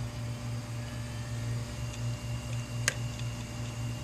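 Western Digital 500 GB hard drive spinning after power-up, a steady hum with a faint whine, then one sharp head click near the end. The click is the sign of damaged read/write heads, which the owner puts down to frost on the platter after freezing the drive.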